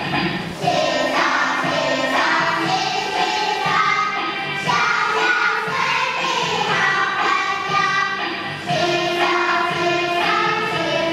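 Children singing a handwashing song with musical accompaniment.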